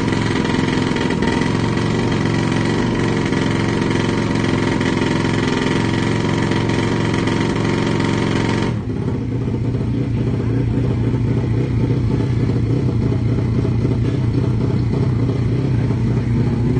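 A 150cc drag-racing motorcycle engine held at steady high revs at the start line. About nine seconds in the revs drop suddenly, and it runs on steadily at a lower speed.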